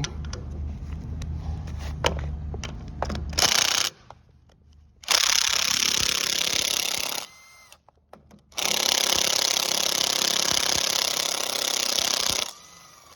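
Impact wrench hammering in three bursts, a brief one, then about two seconds, then about four seconds, with a falling whine as it spins down after each. It is driving a 3/8 Allen socket to loosen the screws of a forklift's front wheel.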